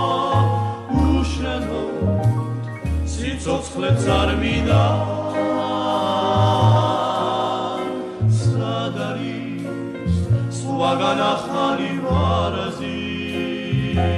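Music: a choir singing over a low bass accompaniment.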